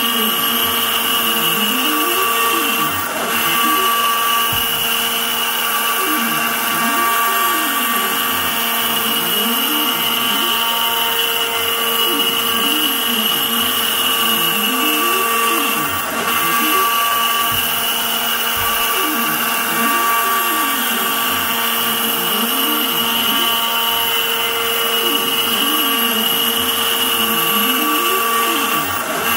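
Inventables CNC router running, its spindle giving a steady high whine as the end mill cuts a curved profile into a wooden board. Beneath the whine, lower tones slide up and down over and over: the axis stepper motors speeding and slowing as the cutter follows the curves.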